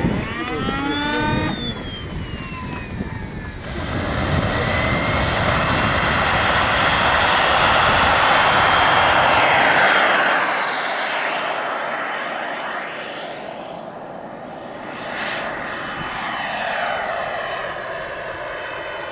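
Turbine engine of a radio-controlled model jet airplane. A whine rises in pitch for the first second and a half, then the jet's noise swells into a loud pass around nine seconds in and fades away. Another pass with falling pitch follows near the end.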